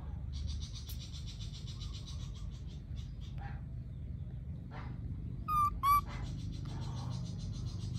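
Two short, high-pitched squeaky calls from a baby long-tailed macaque, a little over half a second apart, about five and a half seconds in. Behind them, insects chirp in a steady pulsing rhythm that fades for a few seconds in the middle.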